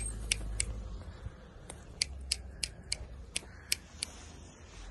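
A small bird's short, sharp, high chip calls, repeated at irregular spacing about two to three times a second, over a low rumble.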